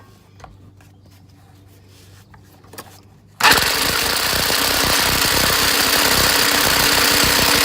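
A few faint clicks, then about three and a half seconds in an impact wrench starts hammering and keeps going, driving a socket on a stuck bolt to try to break it loose.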